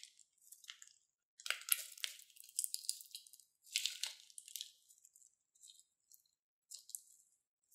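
Thin plastic bag crinkling as it is squeezed by hand, pushing gold slime out onto a bed of foam and plastic beads, with the beads rattling a little. Two louder bouts of crinkling, about a second and a half and four seconds in, then softer handling.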